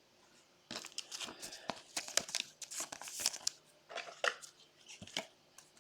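Light crinkling and rustling of plastic and trading cards being handled, with short scattered crackles and clicks.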